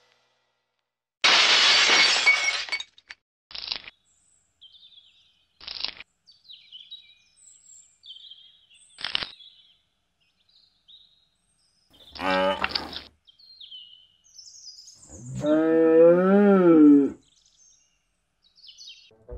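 Cartoon sound effects: a burst of crashing, breaking noise, three short sharp snaps, and faint bird chirps. Then a short pitched cry and a long, loud call that rises and falls in pitch.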